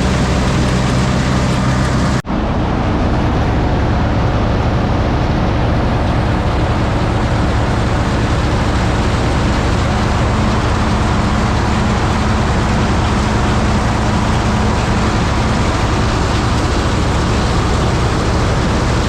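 Tractor engine and the farm machinery it drives running steadily and loudly. The sound breaks off abruptly about two seconds in and resumes with a different, noisier tone.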